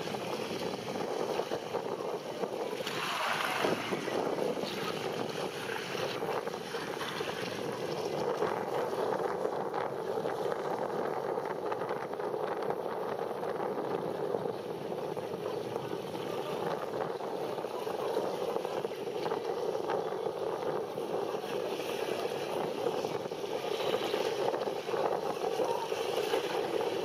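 Steady wind buffeting the microphone over open sea water, with the wash of waves.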